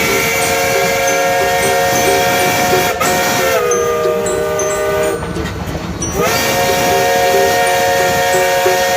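Train whistle sounding a multi-note chord in two long blasts, each sliding up in pitch as it starts, the first dropping a little lower partway through, over the rumble of the running train.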